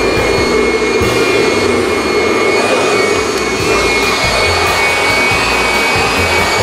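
Vacuum cleaner running steadily: an even rush of air with a thin high whine held at one pitch.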